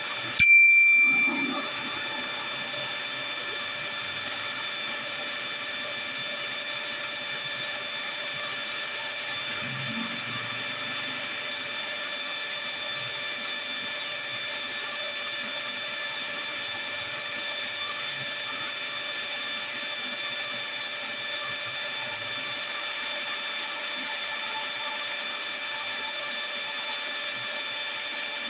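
A short bell ding about half a second in, a subscribe-notification chime, ringing for about a second. After it, a steady hiss with several fixed high whining tones, unchanging to the end.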